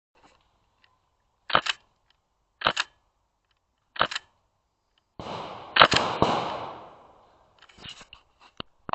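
Airsoft gun firing single shots, three sharp cracks about a second apart, then a louder cluster of shots with a rattling noise around six seconds in that trails off, followed by a few light clicks near the end.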